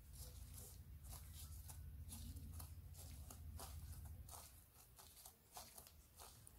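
Faint, scratchy rustling of a disposable plastic glove and dry crushed-almond and coconut coating crumbs as a hand picks up and scatters them, over a low steady hum that drops away about two-thirds of the way through.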